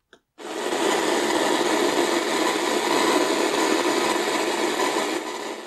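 AM radio static: a loud, steady hiss from a portable AM/FM radio played through an external speaker. It starts suddenly about half a second in as the radio comes on, and drops in level near the end as the volume is turned down.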